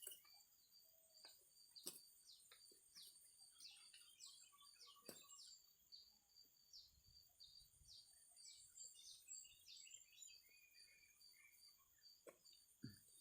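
Faint ambience of a bird repeating short falling chirps, two or three a second, over a steady high-pitched insect drone. A few sharp clicks or knocks come through.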